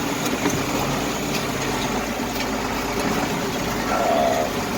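Engine of a farm machine running steadily, with a few faint clicks and a brief higher tone about four seconds in.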